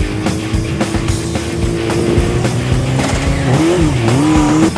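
Rock music with a steady beat, mixed with a Kawasaki ZX-6R 636 sport bike's engine revving. A pitched tone dips and climbs again near the end.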